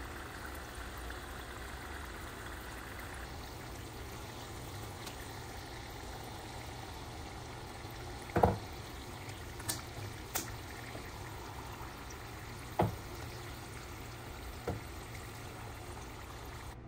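Turon (banana spring rolls) deep-frying in oil, a steady sizzle and bubbling. Over the second half come five sharp knocks of tongs against the pan, the first the loudest.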